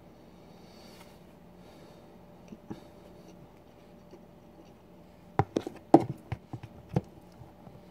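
Metal spoon clicking and scraping against a plastic food tub: two faint clicks about two and a half seconds in, then a quick run of sharp knocks and scrapes near the end, the loudest about six seconds in.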